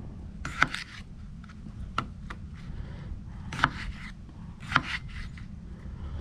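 Knife cutting raw potatoes into strips for French fries, a sharp knock at each cut, about one every second or so, with lighter taps between.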